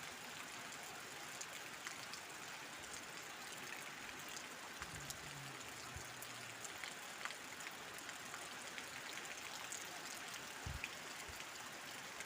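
Heavy rain falling steadily: a dense hiss with scattered ticks of individual drops, and a low thump near the end.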